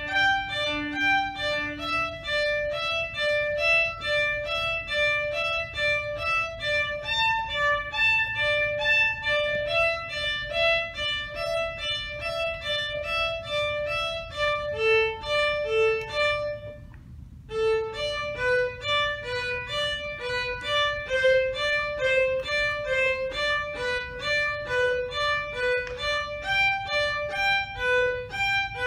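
Solo violin playing a quick run of short bowed notes, a passage practised as a three-note sequence, with a brief break about 17 seconds in.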